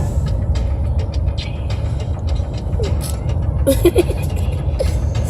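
Steady low rumble of a moving vehicle heard from inside its cabin, with scattered faint clicks.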